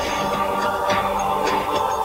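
Intro music: sustained chords with several short percussive hits.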